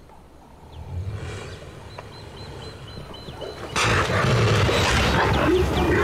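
A low rumble, then a sudden loud, harsh animal roar breaks out about four seconds in and keeps going: a crocodile and hippos in an open-mouthed face-off.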